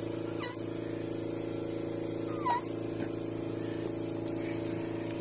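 Vacuum pump of a teat milker running with a steady hum while a teat is stripped out, with two short high squeaks about half a second and two and a half seconds in.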